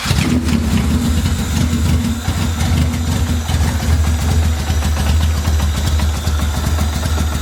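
Honda B18B 1.8-litre four-cylinder engine idling with an uneven, pulsing beat. It is still misfiring, only a little better after the fuel return line was refitted, and the owners suspect the fuel injectors.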